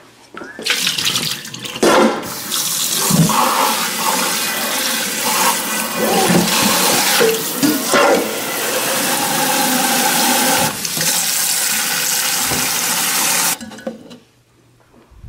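Kitchen tap running hard into a stainless steel sink and a stainless steel dog bowl as the bowl is rinsed and refilled, with a few clanks along the way. The water shuts off near the end.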